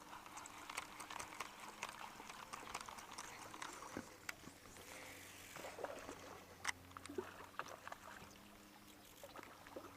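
Faint water trickling and lapping, with many small scattered ticks and knocks and a faint steady low hum.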